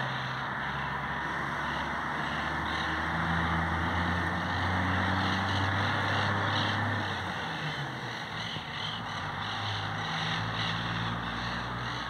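A motor vehicle's engine running with a low steady hum that grows louder about four seconds in and eases off after about seven, over continuous high chattering calls of monk parakeets in the trees.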